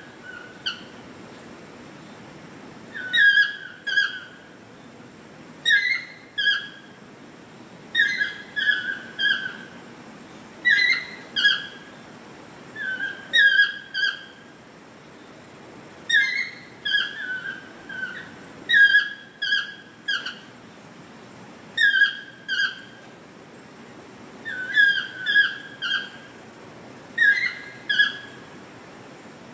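Chestnut-mandibled toucan calling: a yelping phrase of two to four notes, repeated about every two and a half seconds.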